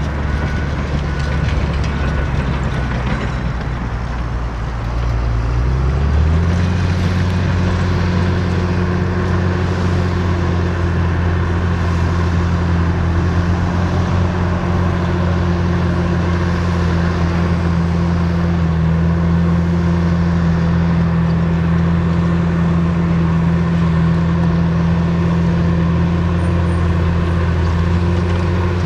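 Komatsu D61PX crawler dozer's 116 kW diesel engine running steadily as it pushes topsoil, its pitch stepping up about six seconds in and then holding.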